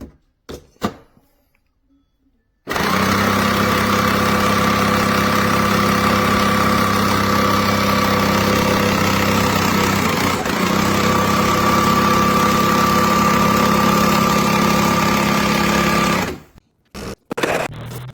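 Breville Barista Touch Impress espresso machine running its motor for about 13 seconds, a steady mechanical hum with a hiss, briefly dipping about ten seconds in, with a few short clicks just before it starts and after it stops.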